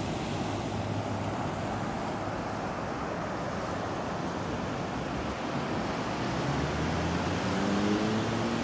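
Ocean surf breaking and washing up the beach, a steady rush of noise. Near the end a low engine hum rises in pitch beneath it.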